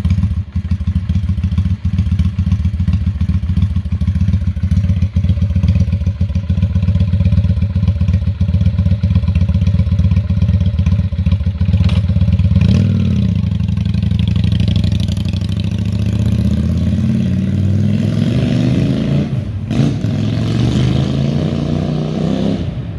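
Motorcycle engine running through its stock exhaust with the baffle removed, a full-bodied exhaust note. It runs steadily for about the first half, then its pitch shifts and rises and falls as it is revved.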